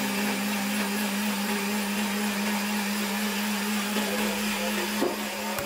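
Electric countertop blender running steadily under load, its motor giving a constant hum with a whirring hiss above it. It is powered from a DIY LiFePO4 battery power station's outlet.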